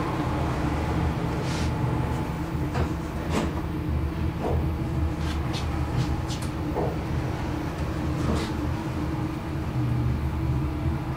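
Hissgruppen AB elevator car running downward: a steady low hum from the lift in motion, with a few scattered light clicks and ticks.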